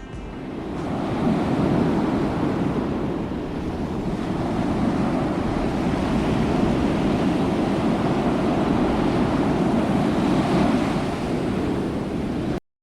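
Steady rush of wind and surf, swelling over the first second or so and cutting off suddenly near the end.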